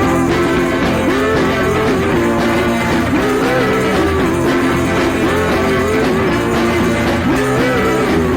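Background rock music with guitar and a melody that slides up and down over steady held notes.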